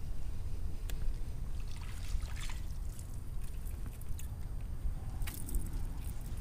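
Water lapping and trickling against a rocky shoreline under a low wind rumble on the microphone, with a few light clicks and crackly rustles about two seconds in and again near the end as a small fish is reeled up and handled.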